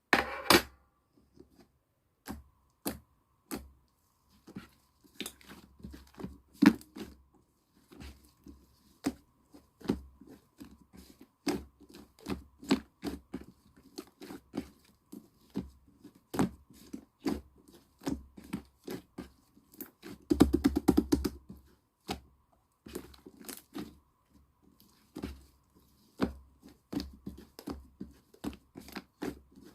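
Yellow clay slime (slime mixed with soft angel clay) being played with by hand, giving irregular small pops and clicks, with a denser run of crackling about twenty seconds in.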